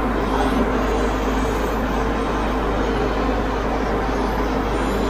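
Airbrush setup running: a compressor humming steadily with an even hiss of air, unchanged throughout.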